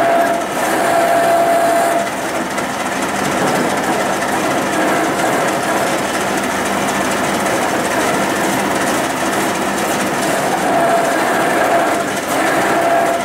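Metal lathe turning a torque converter from a CD4E automatic transmission, the cutting tool shaving the steel shell to cut the converter open: a steady, loud grinding rattle of machining. A high squeal from the tool comes and goes, about a second in and again in the last few seconds.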